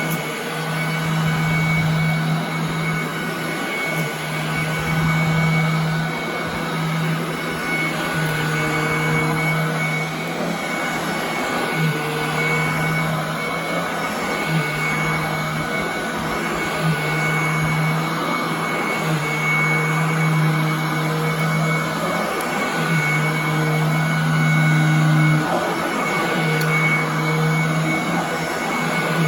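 Royal commercial upright vacuum cleaner running on carpet, a steady motor whine, with a low hum underneath that comes and goes every second or two.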